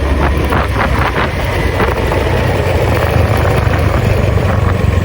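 A vehicle running along a road, with wind buffeting the microphone in a steady low rumble.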